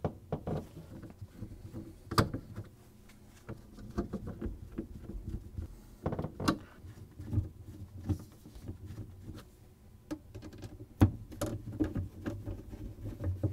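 Light plastic clicks and knocks as freezer shelf rails are fitted back into a refrigerator's freezer compartment, with three sharper snaps spread through.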